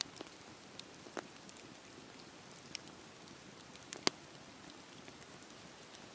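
Campfire burning: a steady hiss with scattered sharp crackles and pops, the loudest pop about four seconds in.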